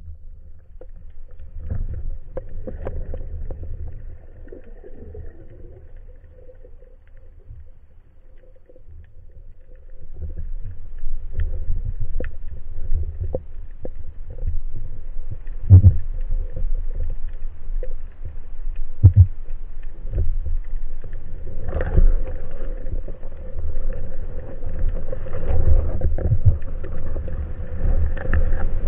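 Underwater sound heard through a camera housing: a low, muffled rumble of water moving past it, with scattered clicks and a few sharper knocks, getting louder about a third of the way in.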